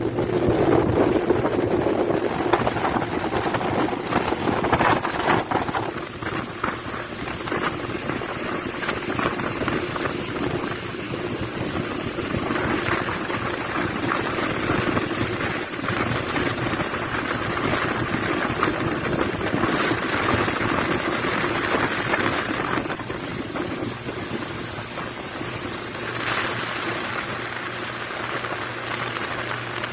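A boat's engine running steadily, with a constant hum under a rush of wind and water noise.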